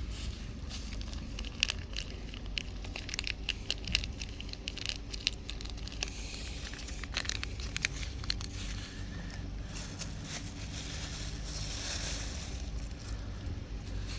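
Tabby cats eating, crunching their food with many short, sharp clicks.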